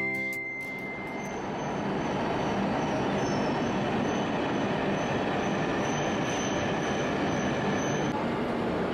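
E5-series Shinkansen train moving along a station platform: a steady rumble and rush of wheels and air, with a faint high squeal that comes and goes from about three seconds in until near the end.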